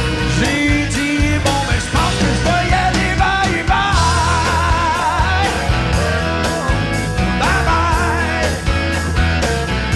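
Live rock band: a male voice sings with held, wavering notes over guitar and a steady drum beat.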